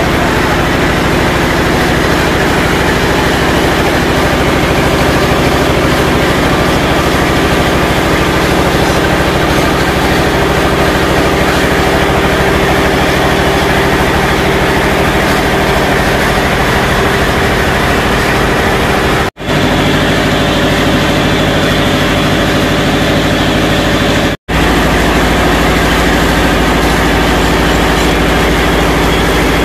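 Small single-cylinder horizontal diesel engine running steadily, driving a spice-grinding mill. The sound breaks off for an instant twice, about two-thirds of the way in.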